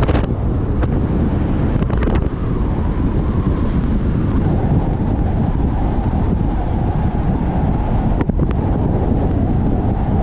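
Car driving along a road: a steady low rumble of engine and road noise, with wind buffeting the microphone. A few brief clicks or knocks sound over it.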